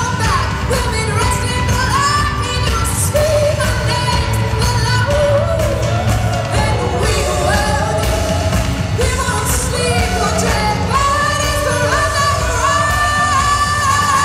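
Live pop-rock band with a woman singing lead, in long held notes over a heavy, steady bass, heard from the audience in a large arena.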